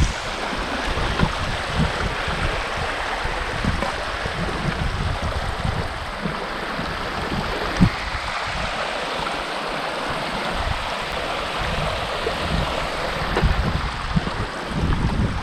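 Steady rushing of running water, with wind gusting against the microphone in low, uneven rumbles.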